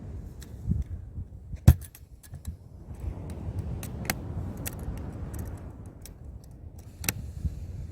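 Wind rumbling on the microphone, with scattered small clicks and clinks and one sharp knock a little under two seconds in.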